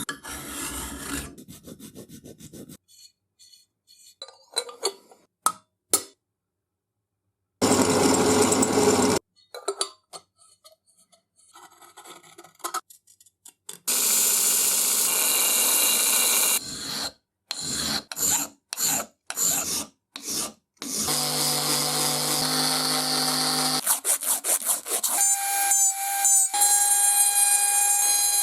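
Workshop tool sounds on a metal ox-tongue iron, in short separate clips with silent gaps: abrasive rubbing and rasping strokes, and in the last few seconds a power tool's motor running with a steady whine.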